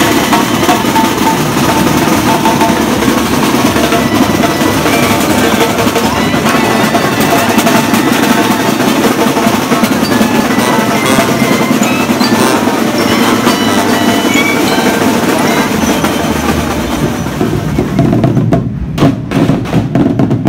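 A marching parade band's drum section playing snare and bass drums in a dense, steady beat with rolls, with some pitched notes ringing over the drums. Near the end the sound thins to separate heavy drum strokes.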